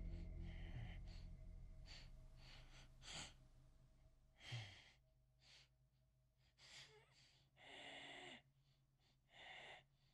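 A low drone fades out over the first two seconds or so. Near silence follows, broken by about five faint, short breaths.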